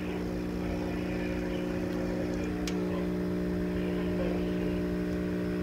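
Steady low mechanical hum made of several constant tones over a low rumble, with a single faint tick about two and a half seconds in.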